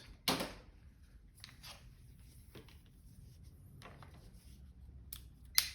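Light clicks and taps of a multimeter and its probes being handled on the element's wires: a sharp click about a quarter second in, a few faint taps, and a louder sharp click near the end.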